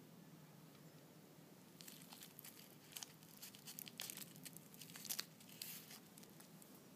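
Dry nori seaweed sheet crinkling and crackling as it is folded by hand around rice, salmon and avocado into a hand roll: a run of faint, crisp crackles from about two seconds in, ending shortly before the end.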